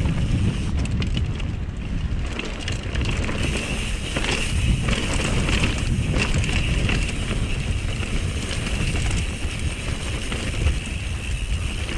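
Wind rushing over the camera microphone on a mountain bike riding down a dirt trail, a steady low rumble with scattered knocks and rattles from the bike over the bumps.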